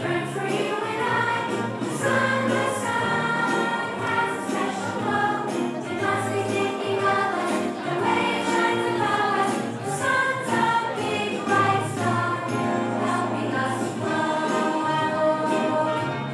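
A children's choir singing a song together over instrumental accompaniment with a steady beat.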